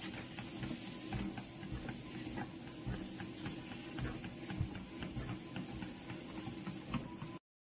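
Motorised treadmill running with a steady hum, with quick light ticks on the moving belt as a cat walks on it. The sound cuts off suddenly near the end.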